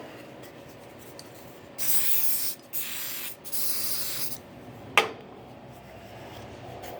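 Aerosol can spraying in three short hissing bursts, followed about a second later by a single sharp click.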